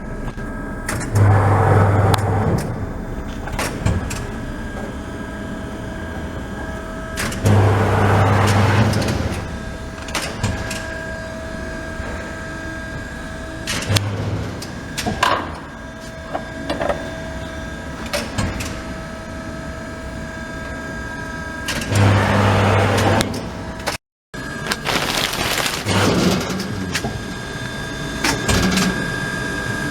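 Amada Promecam 50-ton press brake cycling through its bends: a steady machine whine, with a surge of low hum and noise as the beam strokes, about four times at irregular gaps. Sharp clicks and knocks from the backstop moving into position come between the strokes.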